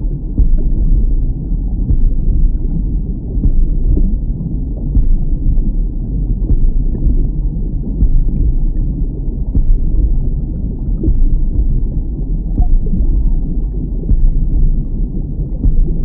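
A deep, muffled rumbling drone, dull as if heard underwater, with a soft pulse about every second and a half.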